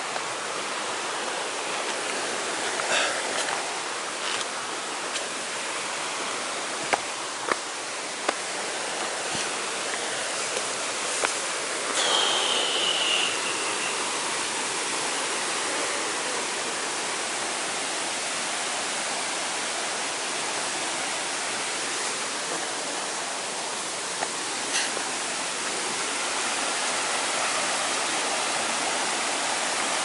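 Mountain stream rushing and cascading over boulders, a steady even rush of water. A few sharp clicks come around seven to eight seconds in, and a brief high whistle about twelve seconds in.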